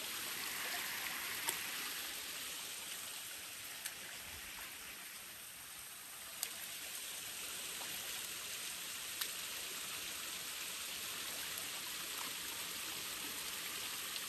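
Shallow river water splashing and trickling as a person scoops it up with her hands while bathing, a steady watery hiss with a few brief sharp clicks.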